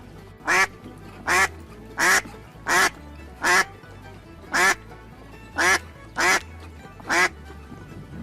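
A duck quacking over and over, about ten loud, short quacks spaced roughly evenly, over quiet background music.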